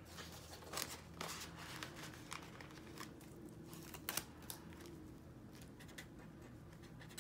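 Quiet rustling and crinkling of plastic zipper envelopes and paper bills being handled in a budget binder, with scattered light clicks.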